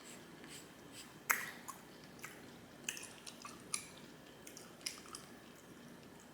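A person chewing spaghetti: soft wet mouth clicks and smacks at irregular moments, the sharpest a little over a second in.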